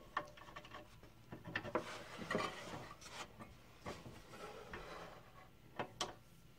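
Handling noises at a stopped scroll saw: its metal hold-down foot being adjusted by hand and a particle-board panel sliding over the saw table, with scattered light clicks and scrapes. Two sharper clicks come near the end.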